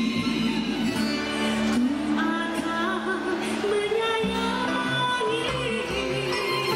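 A woman sings through a microphone with a live band accompanying her, and a violin plays along.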